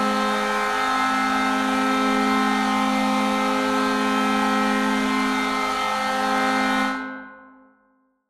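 The Charlotte Checkers' hockey goal horn sounding one long, loud, steady chord, which fades away about seven seconds in. A fresh blast starts right at the end.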